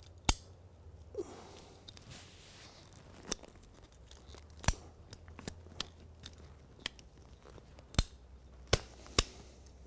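PVC sprinkler pipe being cut with a hand pipe cutter: a run of separate sharp clicks and snaps at uneven intervals, about nine in all.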